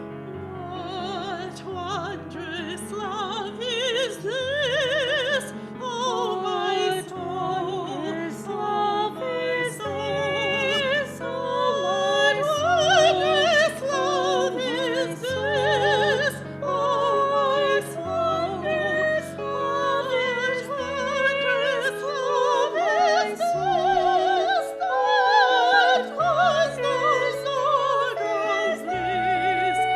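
Classical-style singing with strong vibrato over a piano accompaniment.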